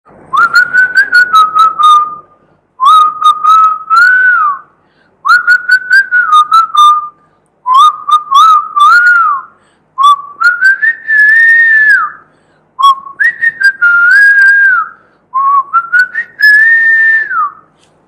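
A man whistling a tune through pursed lips, in seven short phrases of about two seconds each with brief pauses between. The melody climbs somewhat higher in the later phrases.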